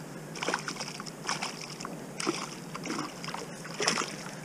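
Hooked pike thrashing in the water, a run of about five irregular splashes.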